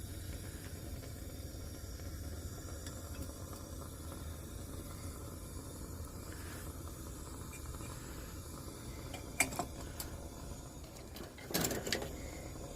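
Steady hiss of a lit Coleman single-mantle pressure lantern burning, with two short knocks near the end as it is handled.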